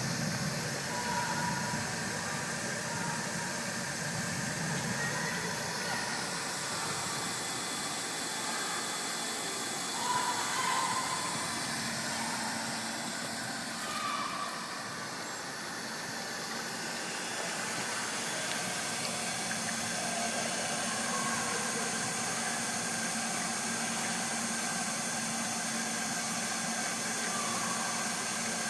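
Steady running machinery: a constant hum with hiss and a few steady tones, with brief faint higher-pitched sounds now and then.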